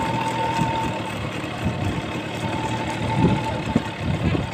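A motor vehicle's engine running steadily, with the irregular strikes of a pair of trotting bullocks and their racing cart on the paved road.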